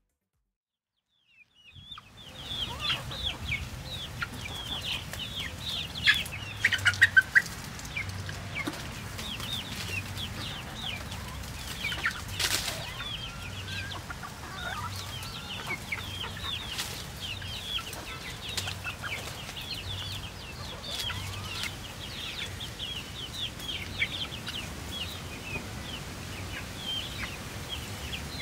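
A flock of young chickens feeding, keeping up a constant stream of short high cheeps and soft clucks, with a few louder calls about six seconds in; it begins after about two seconds of silence.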